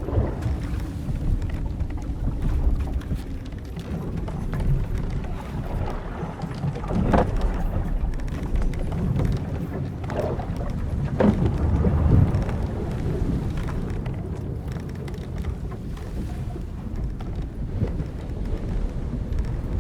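Old wooden sailing ship at sea: a steady low wash of waves and wind, with a few louder creaks of the hull timbers and rigging a little after the middle.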